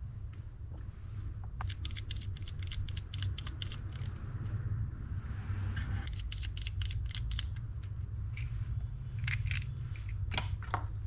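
Light metallic clicks and taps in quick clusters as small spinning-reel parts are handled and taken apart, over a steady low hum.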